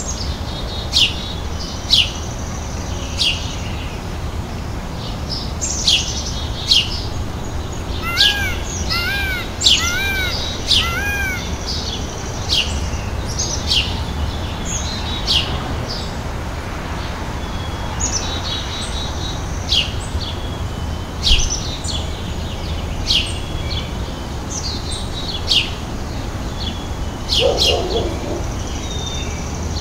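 Small birds chirping: many short, high, downward-sweeping chirps every second or so, with a run of four arched whistled notes about eight seconds in, over a steady low background noise.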